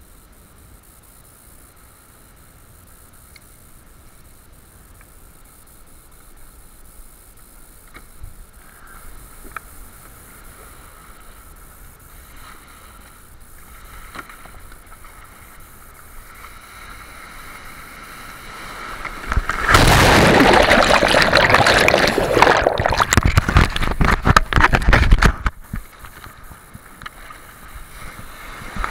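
A breaking wave washing over a sit-on-top kayak in the surf: a faint wash of water, then a loud rush and splashing of water lasting about six seconds, starting about two-thirds of the way in.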